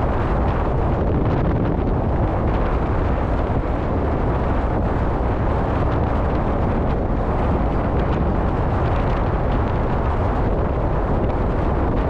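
Strong winter sea wind buffeting the microphone in a steady, heavy low rumble, with rough waves washing against the rock seawall underneath.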